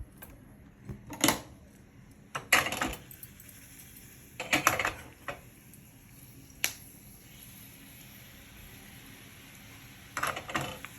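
Metal kitchen utensils clattering against a pan in about five short bursts of clinks and knocks, during the tempering step of cooking.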